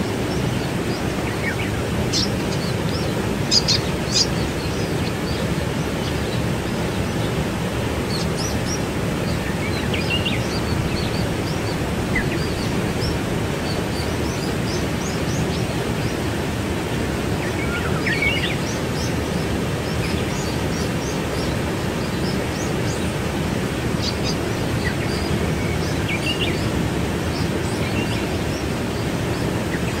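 Waterfall: a steady, deep rush of falling water. Birds chirp now and then over it, in short high calls that are loudest about four seconds in and again around eighteen seconds.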